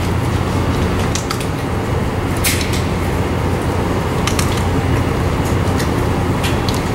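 Steady rushing noise with a low hum, typical of an indoor shooting range's ventilation system. A few light clicks sound over it, the clearest about two and a half seconds in.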